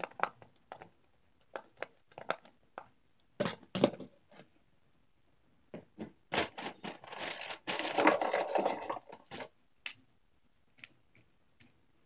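Scattered soft pops as fingers press the bubbles of a silicone pop-it fidget. About halfway through comes a few seconds of dense rustling and clattering as hands rummage among fidget toys. A few small clicks near the end come from a plastic infinity cube being handled.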